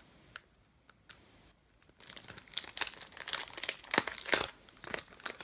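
Clear plastic sticker packaging crinkling as stickers are pulled out of it: a few faint ticks at first, then about two seconds in a loud, dense crinkling for about three seconds.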